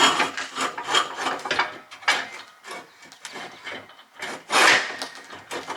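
Irregular scraping and rubbing strokes as a yard cart's axle is worked through the tongue, with the loudest scrape about four and a half seconds in.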